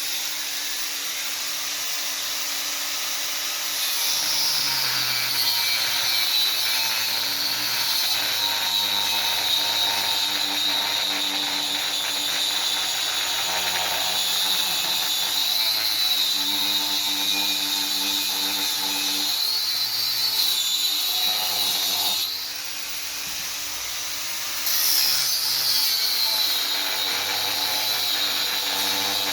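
Angle grinder with a cutting blade cutting through metal: a steady high whine over a hissing grind, the whine dropping in pitch as the blade bites into the cut. About two-thirds of the way through it eases off briefly, then cuts in again.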